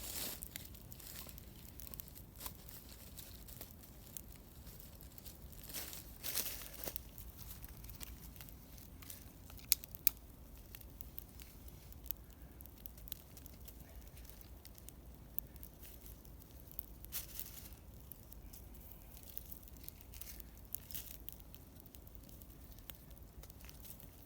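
Campfire crackling, with scattered sharp pops, the two loudest about ten seconds in, and a few short rustling bursts.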